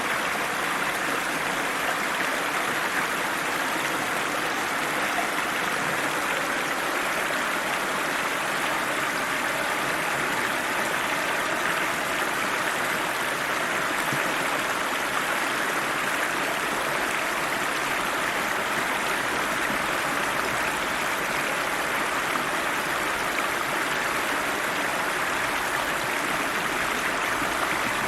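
River water rushing steadily over rocks, a continuous even hiss with no breaks or distinct splashes.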